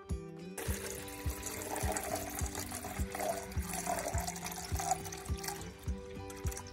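A stream of water pouring from a large plastic bottle into a metal pot, starting suddenly about half a second in and tailing off near the end. Background music with a steady beat plays underneath.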